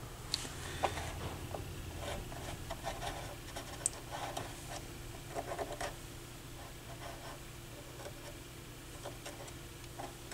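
Faint, irregular scratching and rubbing of a cotton swab working lithium grease into the gear mechanism of an upturned turntable chassis, with a few light clicks. Busiest in the first six seconds, sparser after.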